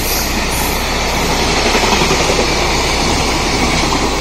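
Freight train of container flatcars passing at speed: a steady, loud rumble and rattle of steel wheels running on the rails.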